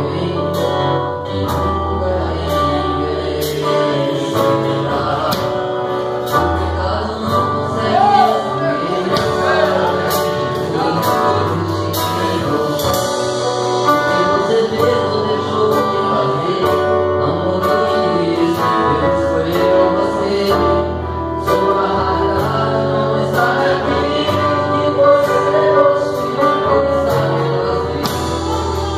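A man singing a gospel song into a microphone, backed live by acoustic guitar, drum kit and keyboard, with cymbal strokes keeping a steady beat.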